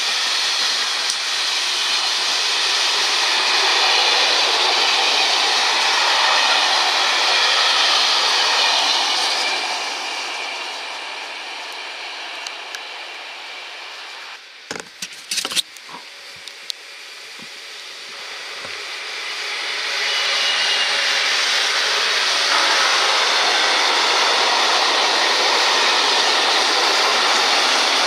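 Two freight trains passing close at speed: the wheels of a container train running over the rails and fading away, a few sharp knocks partway through, then a second freight train approaching and its tank wagons rushing past.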